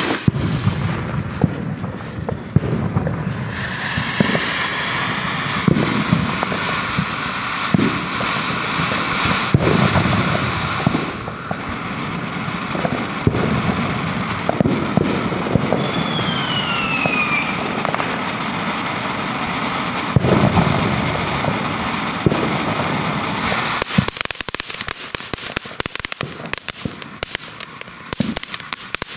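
Consumer firework fountain spraying sparks with a steady loud hiss, a brief falling whistle about halfway through. About 24 seconds in the hiss gives way to rapid crackling.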